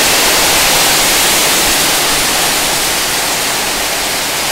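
Heavy rain pouring down on a corrugated tin roof and the ground around it: a loud, steady hiss.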